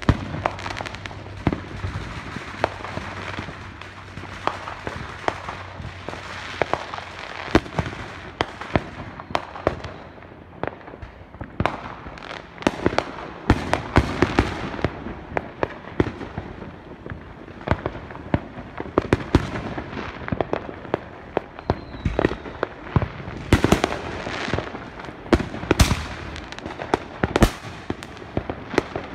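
Fireworks going off: an unbroken run of irregular bangs and pops, some much louder than the rest, with many smaller pops between them.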